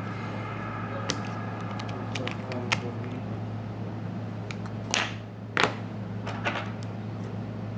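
Scattered light clicks and taps of small repair tools and parts while an iPhone 4S is screwed back together, with a louder cluster of clicks about five to six seconds in, over a steady low hum.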